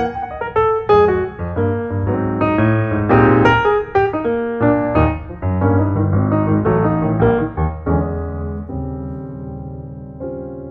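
Background piano music: a run of notes that settles about eight seconds in on a held chord, which slowly fades.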